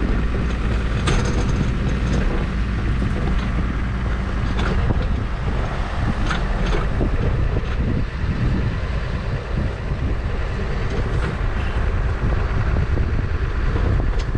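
Farm tractor engine running steadily under load, with a few short clicks and knocks.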